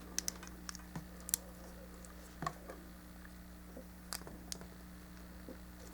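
Plastic model-kit parts clicking and tapping as they are handled and the arms are pressed onto the torso's pegs: scattered faint clicks, with a few sharper ones.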